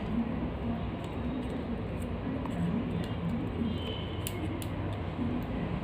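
Small metal screw being tightened into the heatsink of a circuit board, giving faint clicks and scrapes with a couple of sharper ticks near the end, over a low steady hum.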